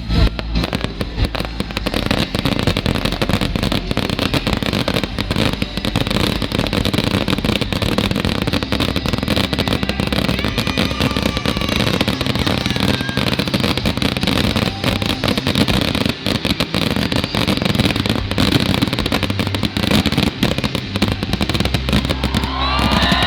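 Fireworks display: a dense, unbroken run of bangs and crackles from bursting shells. Near the end, several whistling fireworks glide in pitch.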